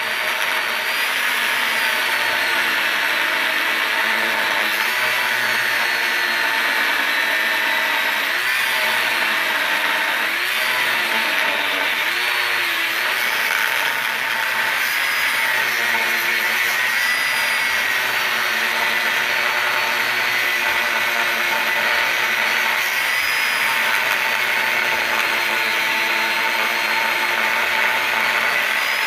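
A power tool running steadily under load as it cuts into an oxygen tank, its whine wavering slowly up and down.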